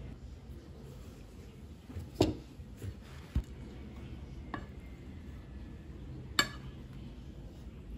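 A metal spoon clinking against a ceramic plate and dishes while cream is spread on a cake: four sharp clinks, the loudest about two seconds in and just past six seconds.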